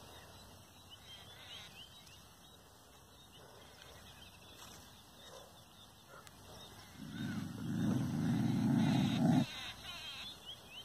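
A dog growling low and rough for about two and a half seconds, starting about seven seconds in after a quiet stretch. It is growling at its own reflection in a mirror, as if at a rival dog.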